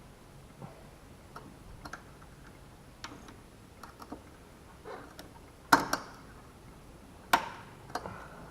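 Scattered clicks and light knocks of hand work on a car's fuel filter and fuel-line clips, with two sharp, louder clicks a little past halfway and about a second and a half later.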